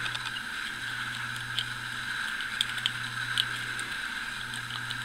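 A few small, sharp clicks and taps from a plastic model railway carriage being handled as its roof is pressed back onto the body, over a steady low hum.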